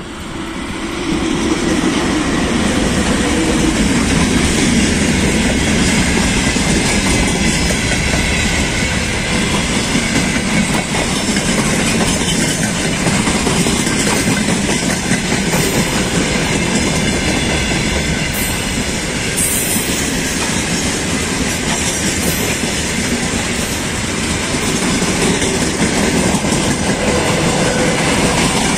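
VL80S electric locomotive passing close at the head of a freight train, then a long run of loaded freight wagons rolling past with a steady rumble and clickety-clack of wheels over the rail joints. The sound swells over the first two seconds as the locomotive arrives, then holds steady.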